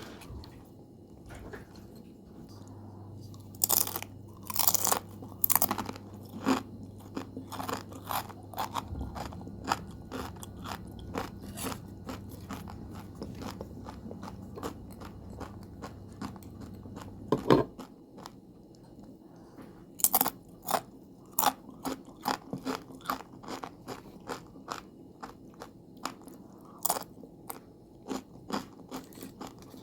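Crisp homemade potato chips being bitten and chewed close to the microphone: a few loud crunching bites, each followed by quick runs of smaller crunches as they are chewed.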